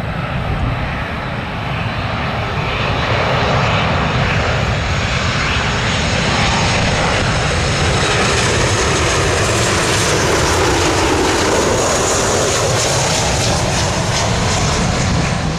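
Boeing 737 airliner's jet engines on landing approach, flying low overhead. The engine noise is loud and steady, with a whine that falls in pitch about ten seconds in as the jet passes by.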